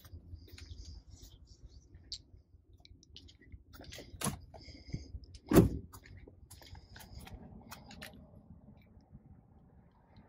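Pickup truck's driver door swung shut with one heavy thump about five and a half seconds in, a lighter knock a second before it, and small clicks and rustles of handling around them.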